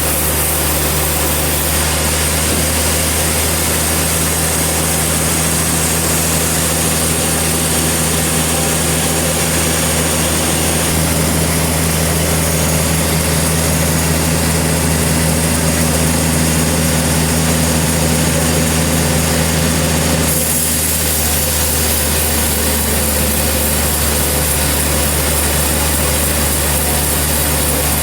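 Sawmill engine running steadily, a constant low drone with a broad mechanical noise over it; the sound changes abruptly about twenty seconds in.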